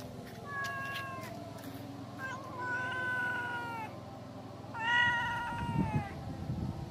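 Pregnant grey tabby cat meowing three times, each call drawn out and dipping in pitch at its end; the middle and last calls are the longest.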